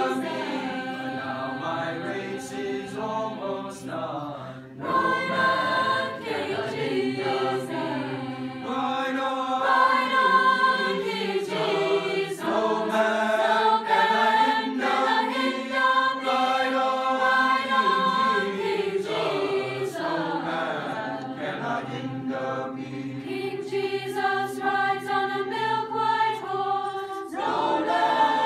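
Youth choir of mixed voices singing a spiritual in parts, holding sustained chords, with a short break about five seconds in.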